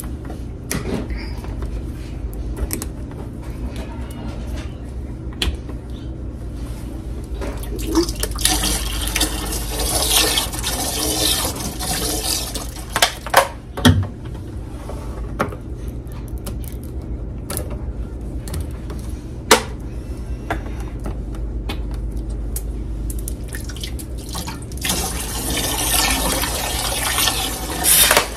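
Seasoning liquids poured from bottles into a pot of bubbling broth, in two longer spells of pouring, with sharp clicks of bottle caps and bottles being handled over a steady low hum.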